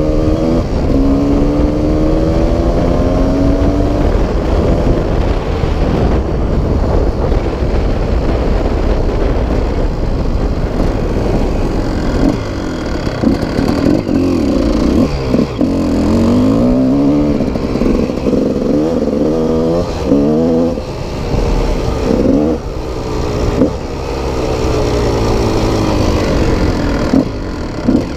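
Off-road motorcycle engine under way, pulling up through the revs in long climbs at first. Later it revs up and drops back again and again as the throttle is worked on rough ground, with heavy wind rumble on the microphone throughout.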